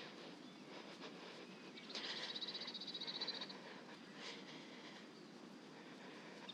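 A faint, rapid, high-pitched pulsing trill from a calling animal, starting about two seconds in and lasting about a second and a half, then starting again at the very end. Under it is a faint steady outdoor hiss.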